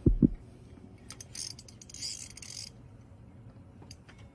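A couple of low thumps at the start, then a few sharp clicks and a burst of rapid, high-pitched ratcheting from an ice fishing reel lasting about a second and a half while a hooked fish is being fought.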